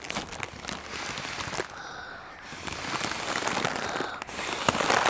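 Two children blowing through straws into Na!Na!Na! Surprise Sweetest Sweets foil pouches to inflate them: a breathy hiss with the foil crinkling and crackling as the pouches fill.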